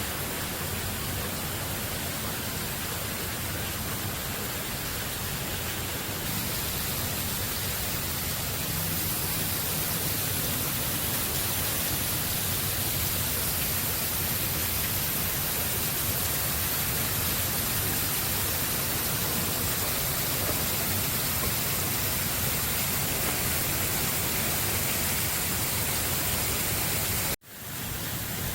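Steady rushing noise of a waterfall's falling water, even and without pitch. It cuts out abruptly for an instant near the end and then resumes.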